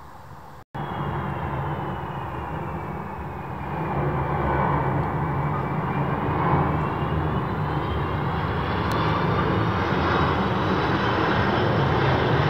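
Airbus A330-323's twin Pratt & Whitney PW4000 turbofans passing low overhead on approach: a loud rumble with a high fan whine that slides down in pitch and then climbs again. The sound cuts out for a moment under a second in, then comes back loud and grows louder about four seconds in.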